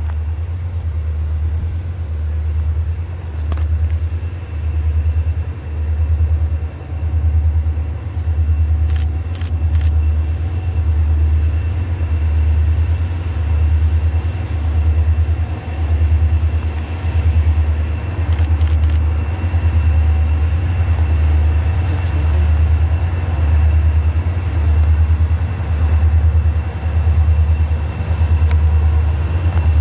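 Diesel locomotive engines of an approaching freight train rumbling low and steady. The rumble swells and fades a little more than once a second.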